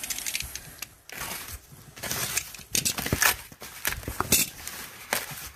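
Snap-off utility knife cutting through packing tape on a cardboard box, with irregular scrapes, clicks and rustles of cardboard being handled.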